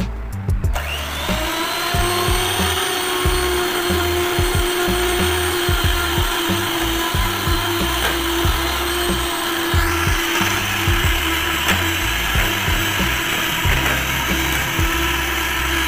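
Electric hand mixer spinning up with a rising whine about a second in, then running steadily at medium speed as its beaters mix mashed banana into a flour and butter crumb in a stainless steel pot; it stops right at the end.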